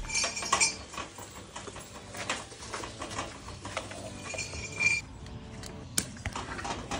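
Spools of #6 THHN wire turning on a metal pipe axle as the wire is pulled off: metallic clinking and rattling, with a brief high squeak near the start and again about five seconds in, and a sharp click about six seconds in.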